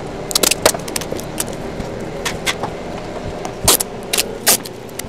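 Blue painter's tape being pulled off the roll and pressed down along a board's edges, in a series of short, sharp ripping rasps; the loudest is a little past halfway.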